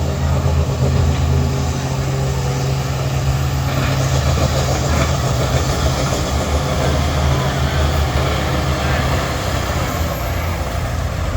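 School bus engines running hard under load in a demolition derby, a steady low drone with dense mechanical noise over it.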